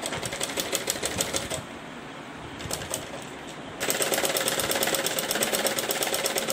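Sewing machine stitching through layered blouse fabric: a rapid, even clatter of needle strokes for about a second and a half, a two-second pause with a couple of clicks, then a longer, louder steady run from about four seconds in.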